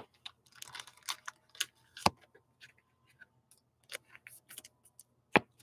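Trading cards and clear plastic card holders being handled and set down on a desk: a string of light clicks, taps and rustles, with a sharper tap about two seconds in and another near the end.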